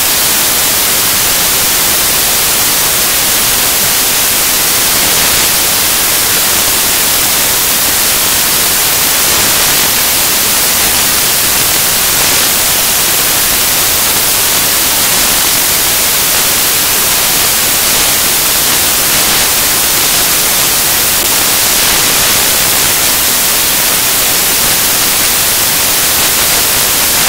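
Loud, steady static hiss like white noise, even and unchanging, with no voice or music under it: a stretch of corrupted soundtrack standing in for the narration.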